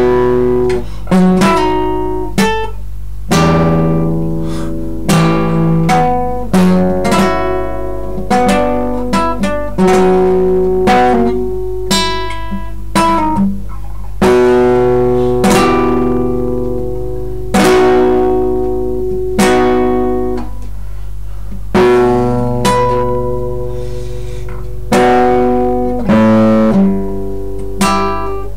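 Classical guitar playing a slow lute paduana arranged for guitar. Plucked chords and single notes come every second or two and are left to ring and fade, over a steady low hum.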